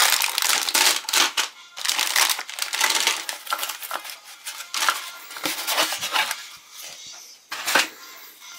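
Crinkling and rustling of foil and plastic wrapper packets handled in a cardboard box, in irregular bursts that are busiest in the first three seconds, with one sharp crackle near the end.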